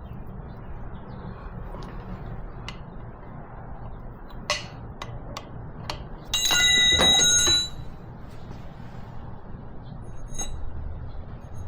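Metal wrenches clicking against the injector line fittings of a Kubota V2203 diesel, a few sharp ticks, then one loud ringing clang of metal on metal that rings for over a second, over a steady low hum.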